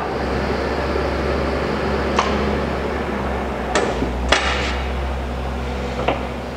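Hwacheon HL-460 gap-bed engine lathe humming steadily while running. Several sharp metallic clicks come from it about two, four and six seconds in, the last as the headstock speed-change levers are moved.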